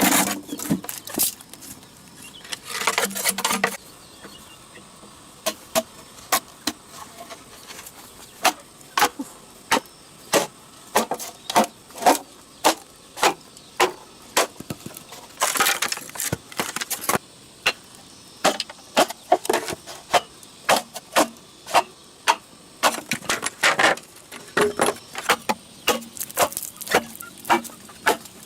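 Hand work on wood: a long run of sharp knocks and taps at an uneven pace, with a few short rasping scrapes, one near the start and one about halfway through.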